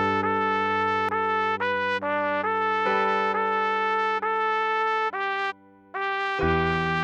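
Trumpet playing a melody in a run of held notes that change every half second or so, with steady low tones sounding underneath. The melody breaks off briefly about two-thirds of the way through, then resumes.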